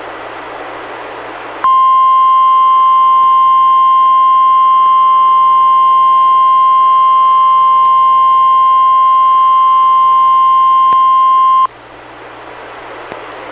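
NOAA Weather Radio 1050 Hz warning alarm tone played by a Reecom R-1630 weather radio: one steady, loud, high tone that starts sharply after a moment of radio hiss, holds for about ten seconds and cuts off suddenly, leaving hiss again.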